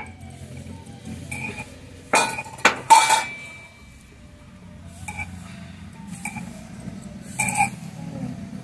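Almonds being crushed with a wooden rolling pin on a wooden board and the broken pieces gathered up by hand: light handling and scraping, with a cluster of sharp knocks and clinks about two to three seconds in and another near the end.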